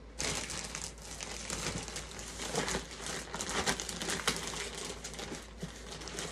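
Packaging crinkling and rustling as it is handled and opened, with many sharp crackles, starting abruptly just after the start.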